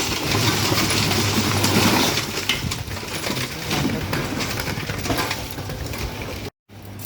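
Es puter ice cream machine running: a steady motor hum under a loud, dense rattling and crunching, as of ice grinding around the churn. The sound breaks off for an instant near the end, after which the hum goes on with less rattle.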